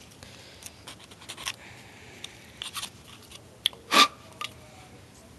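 Irregular short scrapes and clicks of a file worked over the cut edge of a PVC pipe, with one louder knock about four seconds in.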